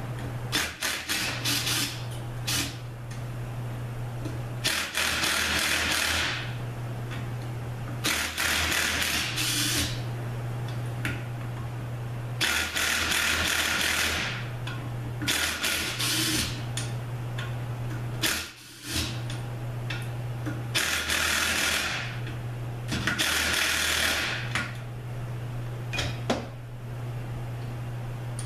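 Power tool running in about five short bursts of a second or so each, spinning out bolts from the back of a Subaru 4AT automatic transmission case. Scattered clicks of tool and metal, and a steady low hum underneath.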